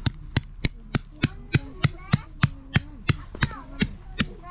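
Tent peg being driven into the ground with a hammer: a steady run of about fifteen strikes, roughly three a second, each with a short metallic ring.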